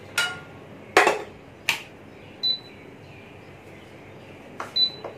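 Kitchen dishes and utensils being handled on a counter: a handful of sharp clinks and knocks, two of them with a brief high metallic ring.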